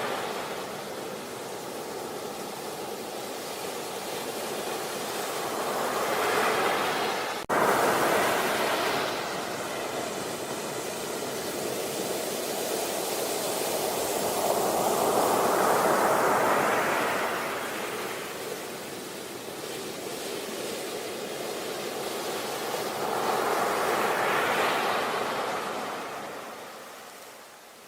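Sea waves breaking on a beach, the surf swelling and falling away in slow surges several seconds apart. About seven seconds in there is an abrupt click and a brief dropout before the surf sound resumes.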